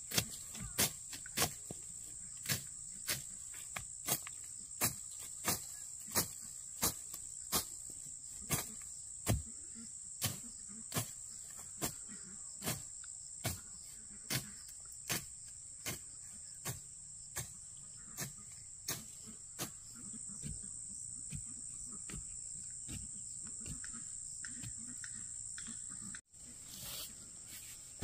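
Regular sharp knocks, about one every three-quarters of a second, over a steady high-pitched drone of insects.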